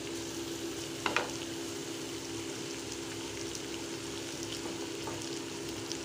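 Freshly added grated raw mango and onions frying in hot sesame oil in a pan: a steady sizzle, with a brief pitched sound about a second in.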